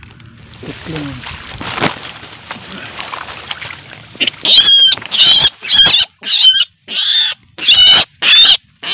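A barred rail caught in a snare and grabbed by hand, giving loud, harsh distress squawks, about eight in quick succession starting about four seconds in. Before the squawks there is rustling of rice stalks and muddy water as the hand reaches in.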